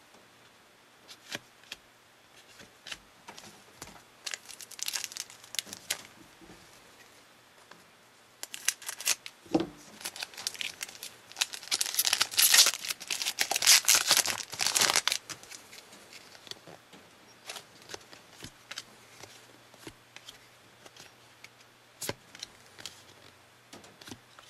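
A trading-card pack wrapper being torn open and crinkled. The crinkling is loudest from about nine to fifteen seconds in, with a shorter patch near five seconds, and light clicks and rustles of cards being handled around it.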